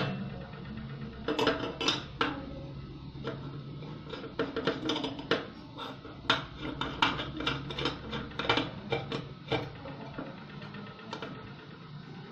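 Irregular metallic clinks and taps of small metal parts and tools being handled, over a steady low hum.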